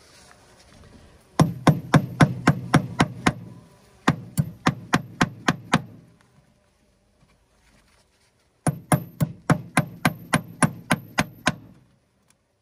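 A steel J-hook hive tool used as a hammer, tapping a fat roofing nail into a wooden hive top bar: three runs of quick strikes, about four a second, with short pauses between runs.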